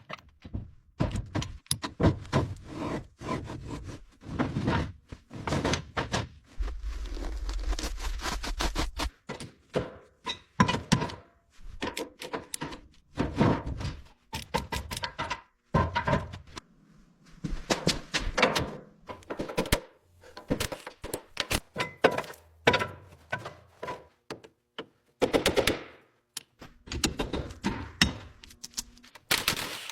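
Irregular metal knocks and clanks of hand tools and drivetrain parts during Jeep teardown, with a low rumble for a couple of seconds about seven seconds in.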